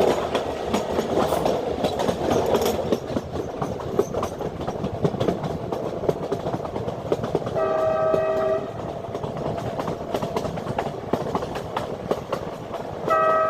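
Passenger train running along the track, a steady rumble with rapid wheel-on-rail clicking. The train horn sounds for about a second around the middle and starts again just before the end.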